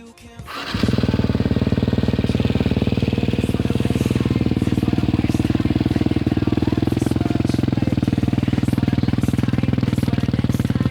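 KTM SX-F 250 motocross bike's single-cylinder four-stroke engine comes in about a second in and runs steadily at one constant speed, without revving.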